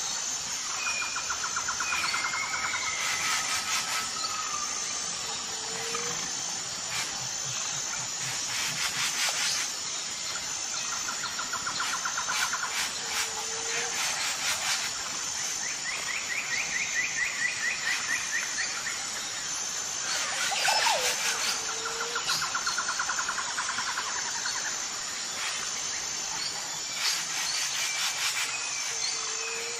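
Outdoor nature ambience: birds giving repeated rapid trills and short calls over a steady, high-pitched pulsing insect buzz.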